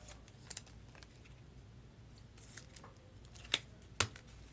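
A few faint, sharp clicks from trading-card packaging and cards being handled, the two loudest near the end about half a second apart.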